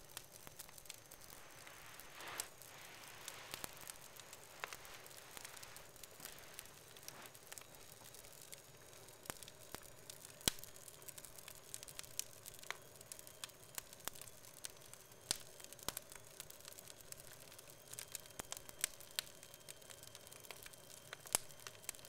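Wood fire burning in a fireplace: logs crackling with frequent sharp pops, the loudest about halfway through, over a soft hiss that swells a couple of seconds in.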